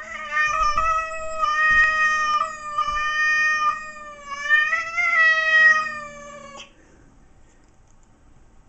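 Domestic cat yowling: one long, wavering caterwaul lasting about six and a half seconds, with a few brief dips in the middle, then stopping. It is the drawn-out, hostile yowl of a cat upset at an unfamiliar cat.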